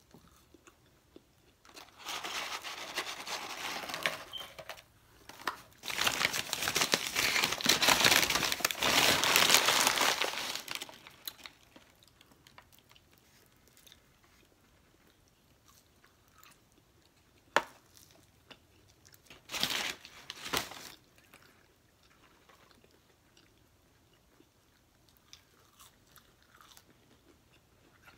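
Paper fast-food packaging rustling and crinkling in two long stretches as McDonald's fries are tipped out of their carton. Quieter eating sounds follow, with a sharp click and a short rustle later on.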